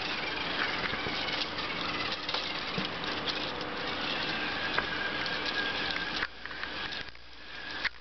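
Wowee Tribot toy robot driving itself across carpet: its small electric gear motors run and its plastic wheels rattle steadily, and the noise drops off about six seconds in.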